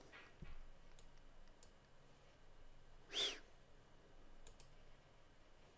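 Faint computer mouse clicks over quiet room tone, a few single clicks spread out, with one short louder noise about three seconds in.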